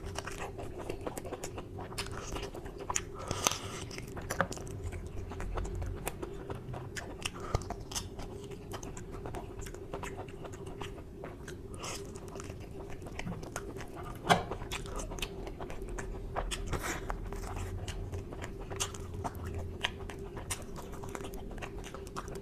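Close-up eating sounds of a man eating mutton curry with his hand: wet chewing, biting and mouth clicks and smacks at irregular intervals, over a steady hum.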